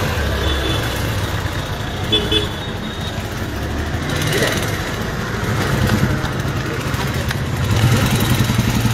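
Road traffic with vehicle engines running close by. A short horn toot sounds about two seconds in, and a low engine note grows louder near the end.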